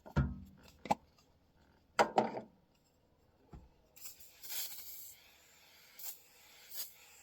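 Handling knocks and clicks, then a few seconds of intermittent rubbing and wiping, as a surface is cleaned by hand with a cleaning product.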